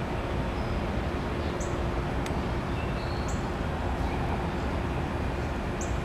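Lit Lincoln Portatorch oxy-acetylene torch with a neutral flame, burning with a steady rushing hiss.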